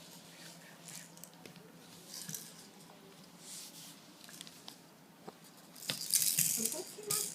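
Faint rustling and small clicks in a small room, with a louder burst of rustling about six seconds in that lasts around a second.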